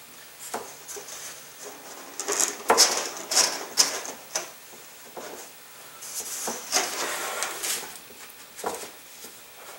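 Cardboard and paper rustling and scraping, with several sharp knocks about three seconds in, as a cardboard fin guide is slid over the fins of a cardboard rocket body tube. Masking tape is pulled off its roll near the middle.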